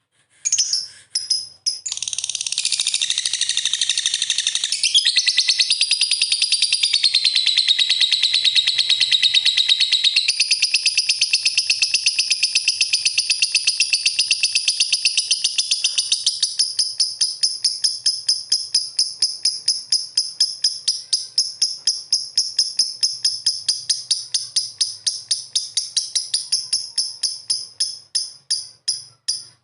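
Lovebird chattering: a continuous high-pitched twittering that, past the middle, breaks into rapid repeated chirps at about three a second.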